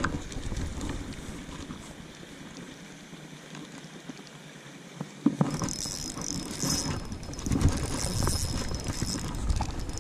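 Fishing reel being cranked with a ratcheting whir while a hooked trout is played, with handling knocks and splashing. It grows louder from about five seconds in, with a thin high whine for a few seconds.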